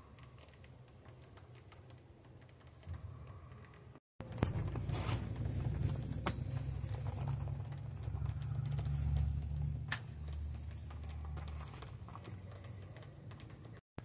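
Hand pruners snipping grape clusters off the vine, giving a few sharp clicks among the rustle of vine leaves, over a low rumble. These start about four seconds in, after a quiet stretch.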